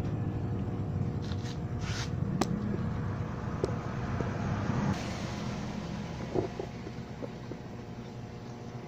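Steady low engine-like rumble, with a few sharp clicks about two seconds in.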